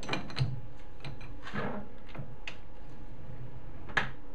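Scattered light clicks and knocks of metal tooling being handled as a parting-off tool is set square in a lathe's tool post, with one sharper click near the end.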